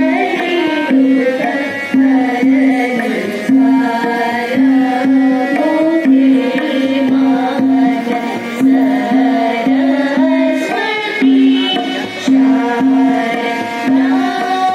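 Group of girls singing a devotional prayer to the goddess Sharada, accompanied by tabla and harmonium; the tabla keeps a steady repeating rhythm under the sung melody.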